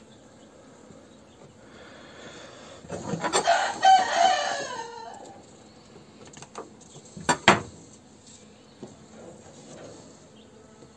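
A rooster crows once, about three seconds in; the call lasts roughly two seconds and falls in pitch at the end. A few seconds later come two sharp clicks close together, as plastic queen-cell cups are handled on a wooden cell bar.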